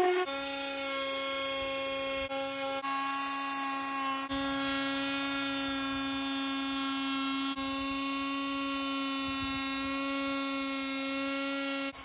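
A handheld power tool running steadily with an even, high-pitched buzz that jumps slightly in level and tone a few times.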